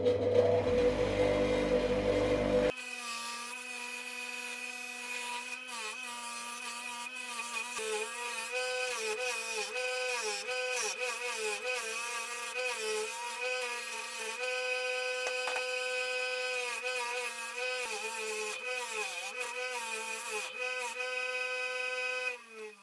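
Bench grinder fitted with a buffing wheel, running while aluminium drill parts are pressed against it for polishing. Its steady whine dips in pitch and recovers again and again as each part is loaded onto the wheel. It is rougher and louder for the first two or three seconds, and the whine winds down just before the end.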